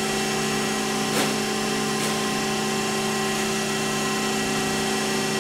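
Chevalier 1020 AD surface grinder running with a steady, multi-toned machine hum as its automatic overhead dresser dresses the grinding wheel, with a faint click about a second in and another about two seconds in.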